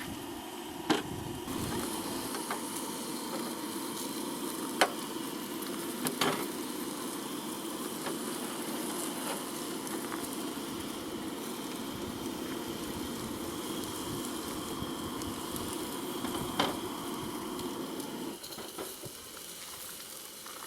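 Steady hiss of food cooking on a camp stove, with a few sharp clicks of a utensil against the pot; the hiss drops away about 18 seconds in.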